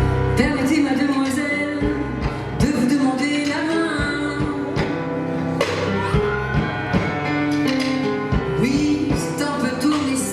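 Live music: singing over acoustic instrumental accompaniment.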